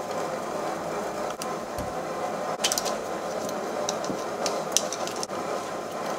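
A screwdriver and hands working on the plastic handle housing of a portable bandsaw that is not running, giving a few light clicks and scrapes over a steady faint background noise.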